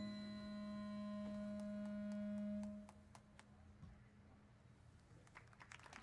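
A single pure, low held note from a marching band's front-ensemble pit, following a short descending run of notes, ringing steadily for about three seconds and then stopping. A few faint taps and clicks follow in a quieter stretch.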